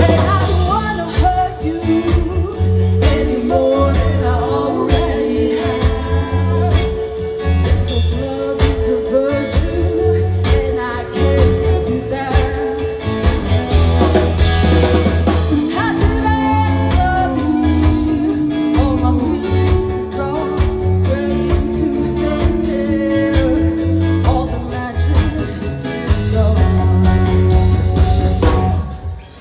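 Live band playing, heard from the crowd: a woman singing lead over electric guitars and a steady beat. The music drops away briefly near the end.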